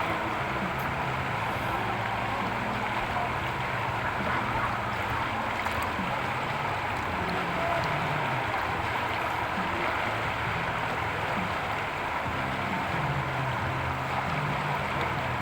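River water rushing over rocks in a strong current, a steady noise.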